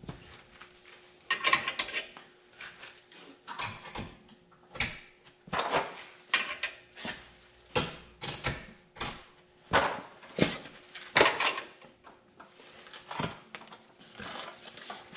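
Metal hand tools and sockets being handled: irregular clinks, clatters and knocks, some ringing briefly.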